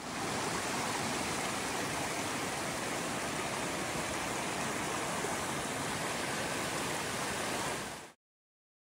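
Rocky mountain brook rushing over boulders, a steady full rush of water that cuts off suddenly about eight seconds in.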